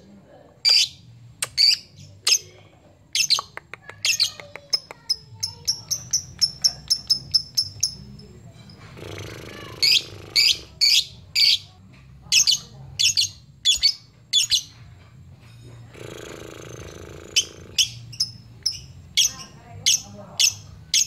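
Lovebird calling with sharp, high chirps, one every half second or so, which speed up into a fast run of calls for a few seconds about four seconds in before resuming the slower pace.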